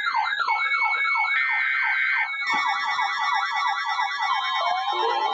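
Several electronic siren tones layered together. One sweeps down repeatedly, about three times a second, under a higher warbling tone. A second set of sweeps joins about halfway through, and a lower rising sweep comes in near the end.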